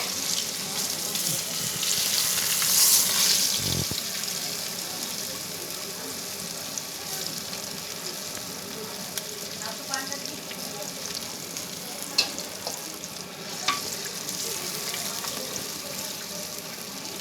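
Fish sizzling as it fries in hot oil in a pan, louder for the first few seconds and then steady, with a few sharp clicks from a utensil against the pan.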